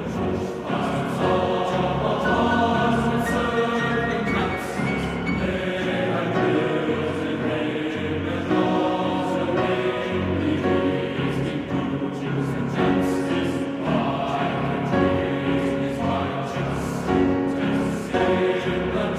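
Music with a choir singing, full and sustained throughout.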